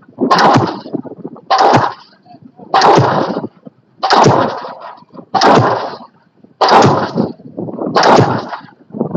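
Pile-driving hammer striking a pile at a steady pace, about one heavy blow every 1.3 seconds, each with a short ringing tail; seven blows in all.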